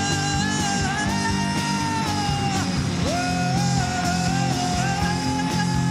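Live rock band (electric guitar, bass guitar and drums) with a lead singer holding two long sung "whoa" notes, the first ending about two and a half seconds in and the second starting just after.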